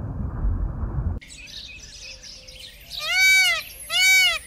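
A low, muffled underwater rumble cuts off about a second in. Near the end a peacock gives two loud calls in quick succession, each rising and then falling in pitch.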